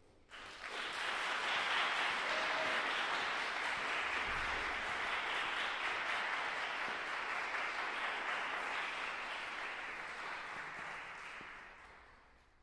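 Audience applauding as the performers come onto the stage. The applause starts suddenly just after the start, holds steady, and fades away near the end.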